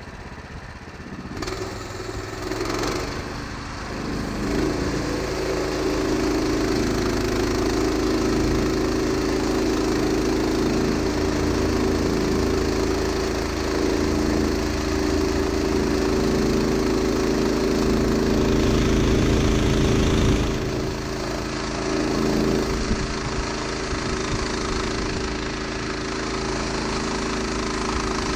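Woodland Mills HM126 portable bandsaw mill: its gas engine comes up to speed in the first few seconds, then runs steadily under load as the band blade cuts through a cherry log, with a brief change about two-thirds of the way through.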